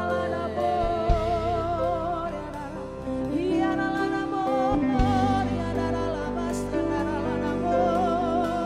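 Slow worship music with held, wavering sung or played melody notes over a steady bass, and a few drum strokes.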